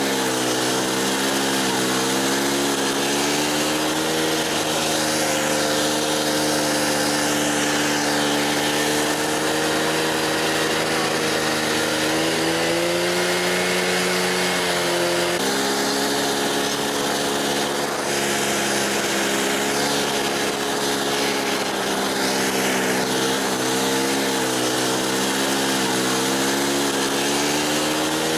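A small engine running steadily, its pitch drifting slightly up and down, with a sudden jump in the sound about halfway through where the footage is cut.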